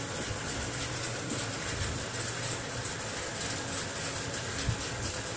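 Steady room noise: a low hum with an even hiss over it, no distinct events.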